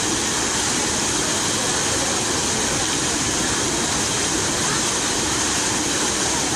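Fountain water splashing in a steady, unbroken rush.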